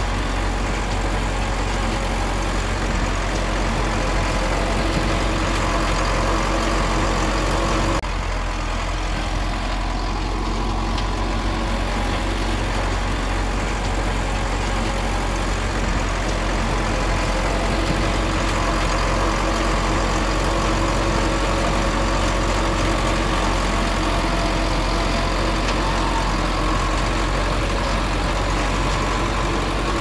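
Komatsu D20P bulldozer's diesel engine running steadily, with an abrupt change in the sound about eight seconds in.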